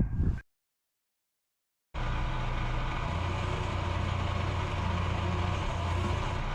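Diesel engine of a CAT 305 mini excavator running steadily with an even low hum, starting suddenly after a second and a half of dead silence.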